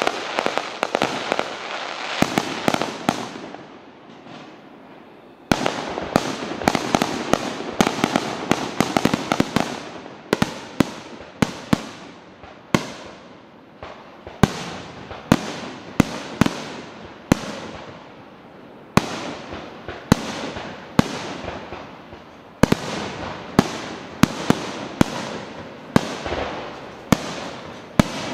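Aerial firework shells bursting in quick succession: sharp bangs over a dense crackle. The barrage dies down briefly about four seconds in, then starts again suddenly with several bangs a second.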